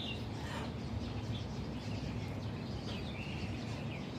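Faint, short bird chirps scattered through, over a steady low background rumble.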